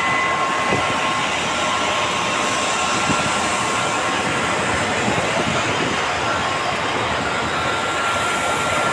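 Concrete batching plant running: steady mechanical rumble of the inclined aggregate belt conveyor carrying gravel, with faint steady whining tones over it.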